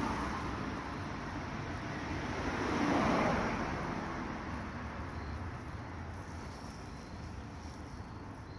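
Steady rushing outdoor noise that swells to a peak about three seconds in and then slowly fades.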